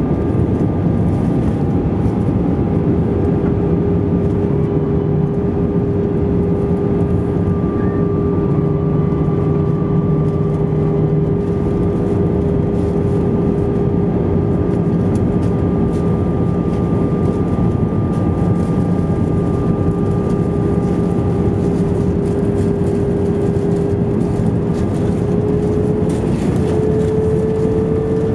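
Airbus A320 cabin noise on approach, heard from a window seat over the wing: a steady roar of engines and airflow with a steady hum, which rises slightly in pitch near the end.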